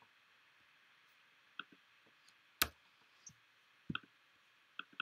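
Computer mouse button clicks: about five separate, unevenly spaced clicks, the one about two and a half seconds in the loudest.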